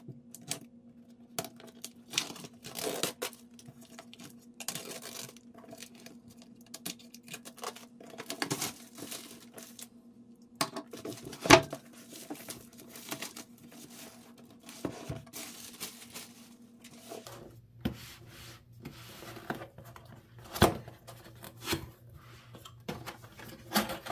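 Plastic shrink wrap being slit with a small blade and torn off a cardboard box, crinkling, with scattered clicks and knocks as the box is handled and its flaps opened; the sharpest knock comes about halfway through.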